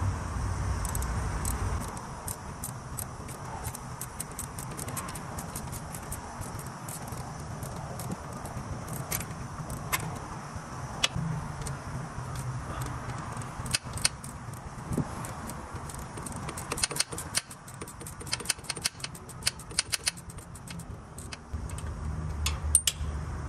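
Hand ratchet with a 13 mm socket clicking in short quick runs as it backs off the battery-cable nut on a vehicle starter, with scattered light metal taps and clinks of the tools. The clicking gets faster and denser in the last few seconds as the nut comes loose.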